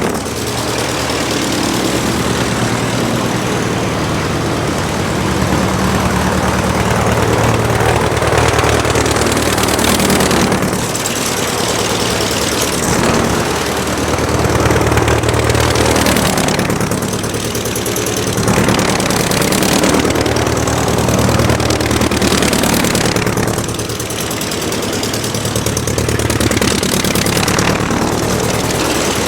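Aircraft engine running steadily: a continuous low engine note that swells and eases slightly every few seconds.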